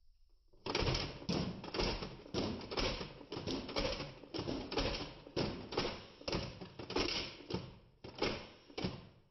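NERF Elite Disruptor blaster being primed and fired over and over: a rapid run of plastic clacks and spring snaps, about three a second. It starts about half a second in and stops just before the end.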